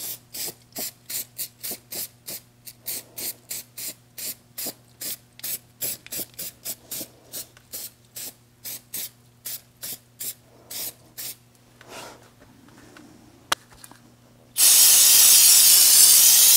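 Aerosol can of red dye penetrant spraying onto a steel truck frame for a crack check. It goes in rapid short spurts of hiss, about three a second, for roughly eleven seconds, then one continuous spray of about two seconds near the end. A faint steady low hum runs underneath.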